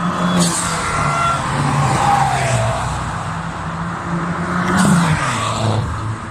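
Cars driving past one after another at speed, their engines rising and falling in pitch as each goes by. The loudest passes come about half a second in and about five seconds in.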